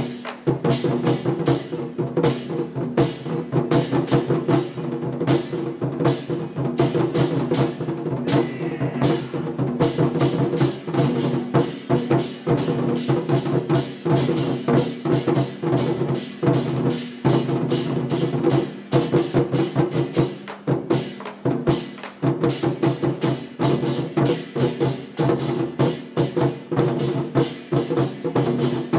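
Chinese war drums beaten in fast, dense strokes, over steady held tones of accompanying music.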